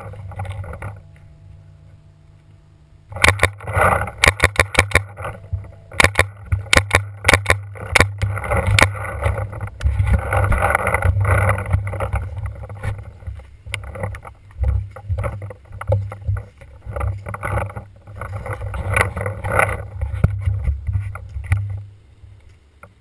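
Paintball markers firing in fast strings of sharp pops, with the low rumble of wind and handling on the marker-mounted GoPro. A quieter pause comes about a second in before the shots pick up again.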